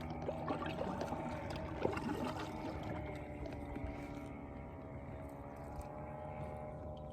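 Water splashing and dripping in the first couple of seconds, as a landed bass is handled at the side of a kayak, over a steady humming drone of several held tones.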